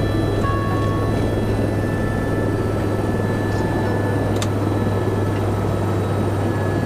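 Helicopter turbine and rotor running steadily while the aircraft sits on the helipad, heard from inside the cabin: a constant low drone with thin steady high whines over it. A single sharp click comes about four seconds in.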